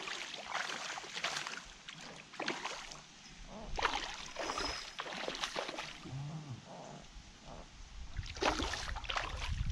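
Water splashing at the surface in several short bursts, about a second in, around four to five seconds in, and near the end, as fish break the surface.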